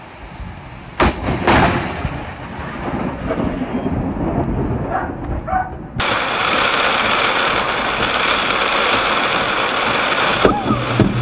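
Close thunder in heavy rain: a sharp crack about a second in, a second crack right after, then rumbling that dies away. After that comes steady rain noise heard from inside a car, with another sharp thunder crack near the end as lightning strikes close ahead.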